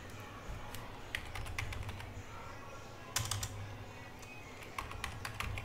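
Computer keyboard typing: scattered key clicks, coming in small clusters of keystrokes, over a low steady hum.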